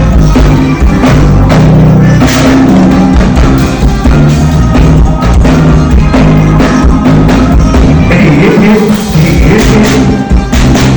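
Rock band playing loud live music, with a drum kit hitting steadily over sustained bass notes.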